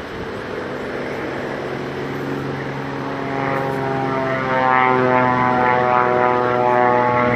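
Aerobatic biplane's piston engine and propeller running steadily in a low pass, growing louder about halfway through as it comes closest.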